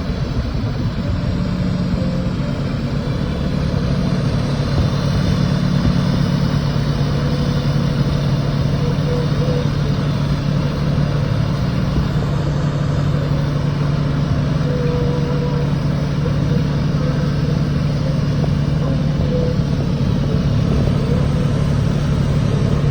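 TIG welding on a pipe root pass: a steady, unbroken hiss over a low, even hum from the welding setup.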